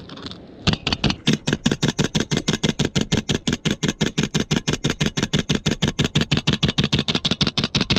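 Hand-pressed plunger garlic chopper pumped rapidly, its blades chopping a garlic clove with a quick, even run of clicks, about seven a second, starting just under a second in.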